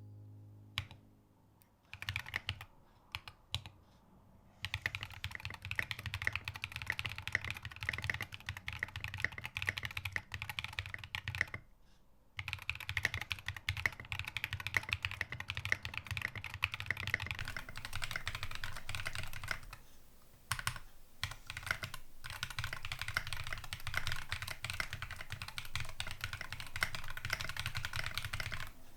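Typing on a Piggy mechanical keyboard with KTT Halu Halo switches lubed with Krytox 205g0, an aluminium plate, no sound dampening and SA-profile keycaps: a fast run of keystrokes beginning about two seconds in, with brief pauses around twelve and twenty seconds in.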